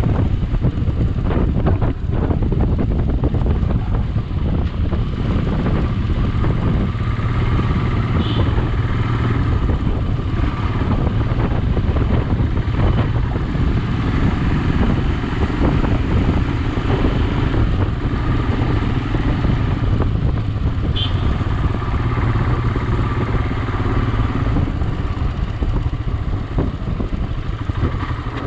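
Motorcycle running steadily while being ridden over a rough, broken road, its engine drone mixed with a heavy low rumble and frequent small knocks from the bumps.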